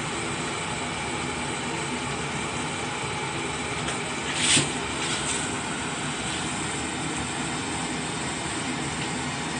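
Steady background hum and hiss, with a short metallic clatter of the ladle against the stainless steel saucepan about halfway through and a fainter one just after.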